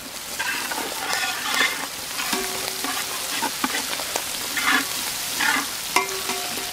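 Sliced capsicum, onion, tomato and green chillies sizzling in hot oil in a large pan, with many small pops. Repeated scrapes and knocks of stirring run through it.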